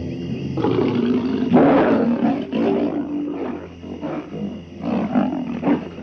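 A lion roaring: long roars from about half a second in, loudest around two seconds in, then a series of shorter grunts spaced out to the end.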